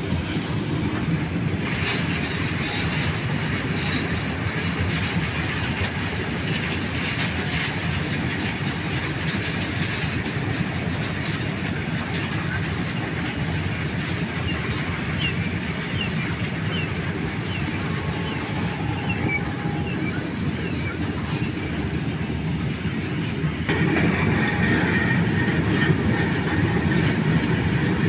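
Freight train wagons rolling along the rails, a steady rumble of wheels on track. It gets clearly louder about three-quarters of the way through, when wagons pass close by.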